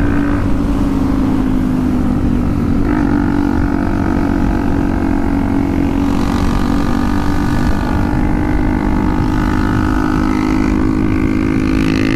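Beta RR 125 motard's single-cylinder four-stroke engine with a modified exhaust, running at a steady cruise on the open road, its note shifting slightly about three seconds in.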